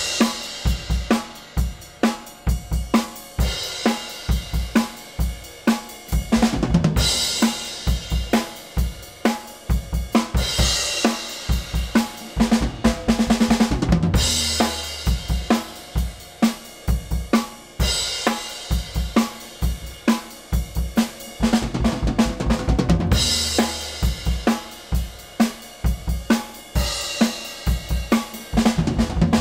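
Acoustic drum kit played in a steady groove: kick, snare and hi-hat hits, with cymbal crashes every few seconds.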